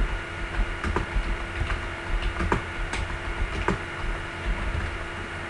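Irregular clicking at a computer as mouse and keys are worked, roughly one or two clicks a second, over a steady low hum.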